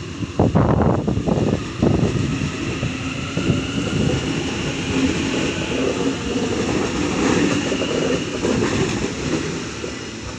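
Sydney Trains A-set Waratah double-deck electric train pulling out of the platform: a steady rumble of wheels on rails with a motor whine above it, and clacking of the wheels in the first couple of seconds.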